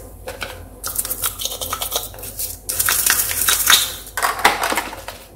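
A small bottle brush scrubbing the inside of a plastic baby-bottle cap in soapy water: rapid scratchy strokes with light clicks and knocks of plastic.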